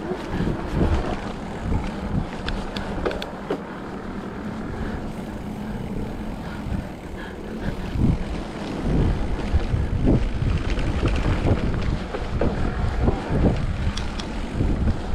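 Mountain bike rolling over a wet, muddy trail: wind buffeting the microphone, a low rumble of tyres on rough ground, and frequent short clicks and rattles from the bike over bumps. It grows louder about halfway through.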